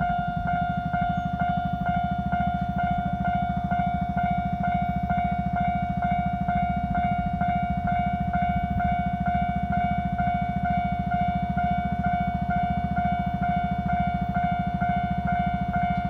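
Japanese level-crossing warning bell ringing: a steady electronic ding repeating about three times a second without a break, over a continuous low rumble.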